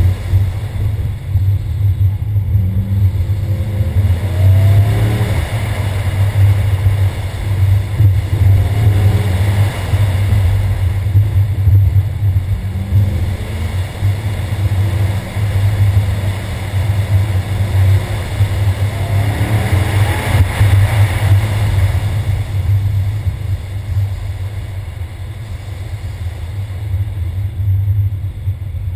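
Ford Mustang engine under hard driving on an autocross lap, pulling up in pitch in repeated bursts of acceleration between lifts, over a steady low rumble. Toward the end it eases off and gets quieter as the car slows.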